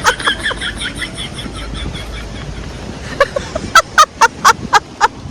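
A chicken clucking in a quick run of short notes that fades out, then about eight loud sharp knocks, roughly four a second, from about three seconds in.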